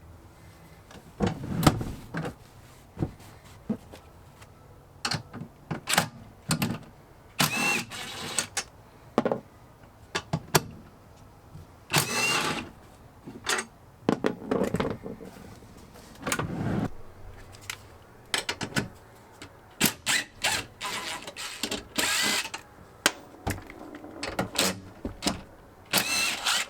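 Cordless impact driver with a Torx socket, run in short bursts of about a second each, loosening the bolts of a van's front seat, with clicks, knocks and handling clatter in between.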